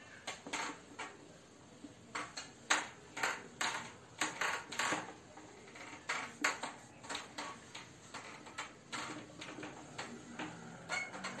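Whiteboard being wiped with a hand-held duster eraser: a run of short, irregular swiping strokes against the board.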